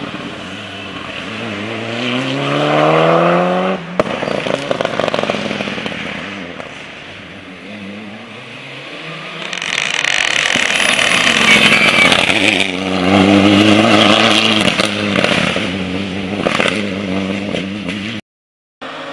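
Mitsubishi Lancer Evolution rally car's turbocharged four-cylinder engine revving hard through the gears, its pitch climbing. There is a long screech of tyre squeal about ten seconds in as the car takes a tight turn, then the engine climbs hard again.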